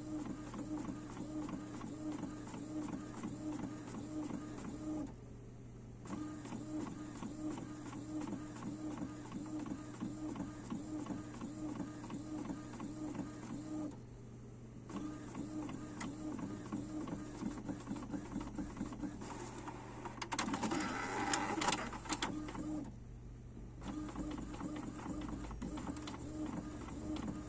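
Epson XP-255 inkjet printer printing a page, its print head shuttling to and fro in a steady, rhythmic mechanical whir. It pauses briefly three times, and there is a louder, noisier stretch about twenty seconds in.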